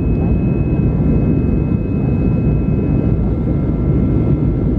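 Steady cabin noise of an Airbus A320-214 in flight after takeoff, heard inside the cabin: a deep, even rumble of its CFM56 engines and the airflow, with a few faint high steady whines above it.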